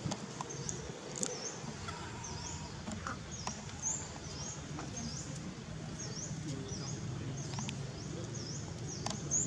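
Outdoor ambience: a short, high chirp repeats about every two-thirds of a second over a low steady hum, with a few faint clicks.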